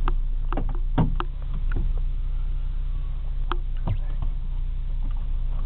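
Ford sedan cabin noise while driving slowly on a dirt track: a steady low drone of engine and tyres, with scattered sharp clicks and knocks from the car going over the rough surface.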